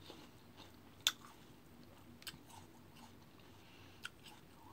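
Close-miked chewing of crisp raw fruit slices, with a few sharp crunches, the loudest about a second in and others near two and four seconds.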